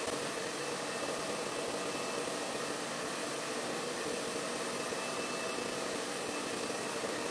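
Stand-mounted pet hair dryer running steadily, blowing a constant rush of air with a hum in it, used to dry a poodle's coat.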